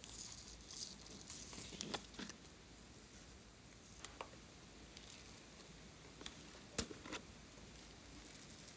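Faint handling of plastic slime containers: light rustling and scattered sharp clicks and taps, the strongest just before seven seconds in. Near the end, foam beads patter softly as they are poured from a bottle into the tray.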